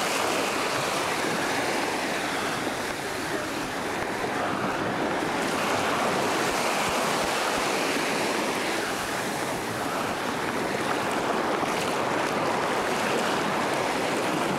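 Small waves lapping and washing up on a sandy beach: a steady rush of surf that swells and eases slightly.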